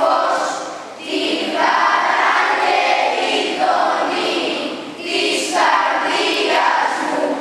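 Choir singing Greek Orthodox Byzantine chant of the Good Friday Epitaphios service, in phrases with short breaks about a second in and about five seconds in.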